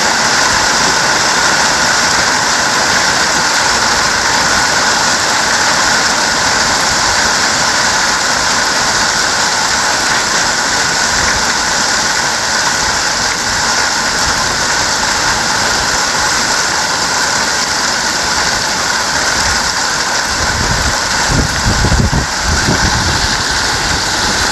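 Hailstorm: hail and rain pelting down in a loud, steady hiss. About twenty seconds in, a low rumble swells for a few seconds.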